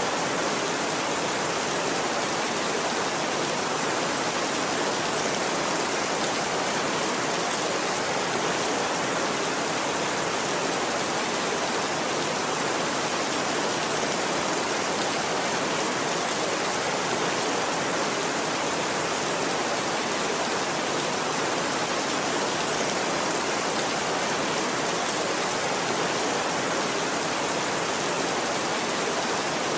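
Steady, even rainfall, a constant hiss of rain with no thunder and no change in level.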